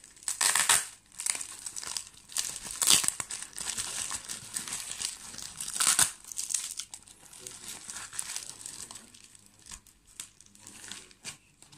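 Parcel packaging being torn open and crumpled by hand: crinkling paper and packing tape in irregular bursts, loudest about half a second, three and six seconds in, then quieter handling from about nine seconds on.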